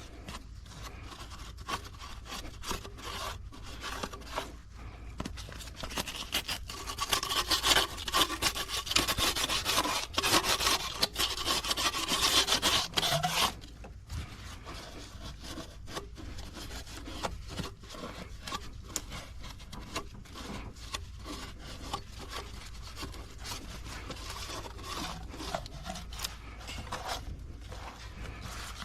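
Hand cleaning of an engine's intake manifold mating surface: continuous rubbing and scraping strokes against the metal surface. The strokes are louder and busier for several seconds from about six seconds in, then go on more softly.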